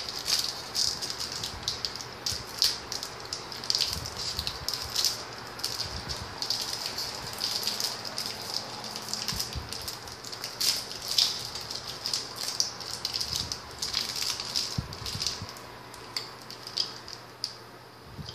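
Plastic snack wrapper crinkling and rustling in irregular crackles as a small package is opened and handled, growing quieter near the end.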